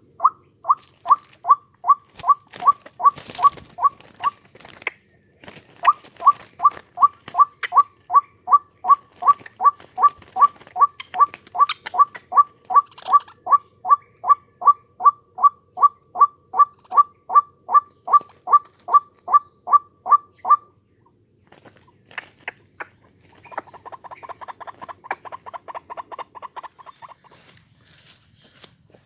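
White-breasted waterhen (ruak-ruak) calling: a long series of evenly repeated notes, about three a second. The series pauses briefly about four seconds in, stops about twenty seconds in, and is followed near the end by a quicker, fainter run of notes.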